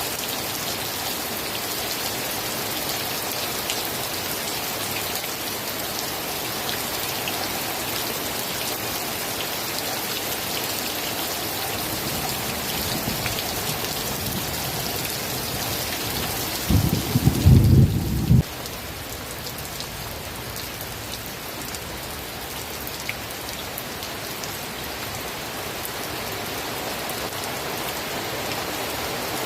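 Steady rain falling, with one short, loud, low rumble of thunder about two-thirds of the way through; the rain sounds a little softer after it.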